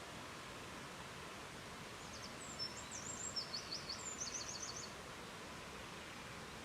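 Steady rush of river water. About two seconds in, a bird sings briefly over it: a few high chirps followed by two quick rattling series of notes, ending about five seconds in.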